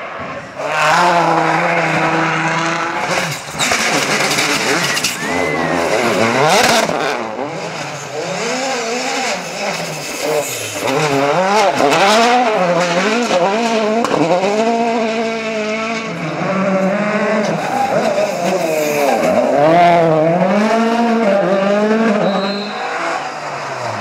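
Several rally cars in turn, driven flat out on a special stage. The engines rev hard, their pitch climbing and dropping again and again through gear changes and lifts off the throttle, with tyres skidding and scrabbling on loose ground.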